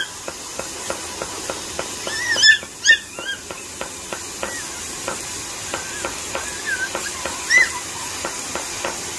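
Toy Pomeranian puppy yapping in short, high-pitched yaps: a quick run of three about two seconds in, a few softer ones later, and one more near the end.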